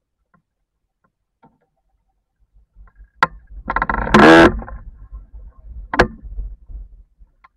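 Sailing dinghy tacking: a sharp knock about three seconds in, then a loud buzzing creak that rises in pitch, and a second knock a few seconds later, over a low rumble of the hull and rigging.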